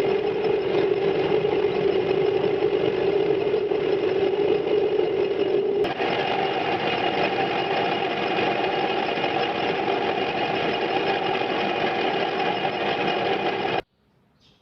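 Eldro electric water pump running with a loud, steady mechanical hum. About six seconds in, a click comes and the hum's main pitch steps higher. It cuts off suddenly near the end.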